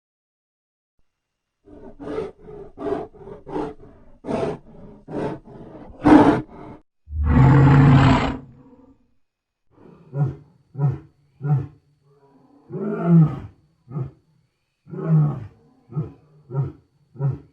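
Speculative Spinosaurus vocalizations, a sound effect built by layering lion, tiger, grizzly bear, walrus, crocodile, elephant, pelican and swan recordings. A quick run of short calls leads into one long, loud roar about seven seconds in, followed by a second series of short, deep calls.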